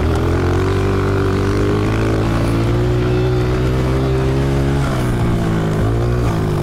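Honda CRF125F's single-cylinder four-stroke engine running hard at steady revs while the dirt bike is ridden along a straight. Its pitch holds level, then dips briefly about five seconds in and again near the end.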